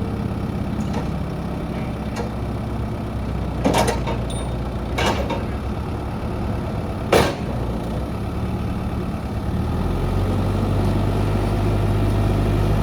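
Volvo BL70B backhoe loader's diesel engine idling steadily, with three short bursts of noise about four, five and seven seconds in. About ten seconds in the engine note shifts and gets a little louder.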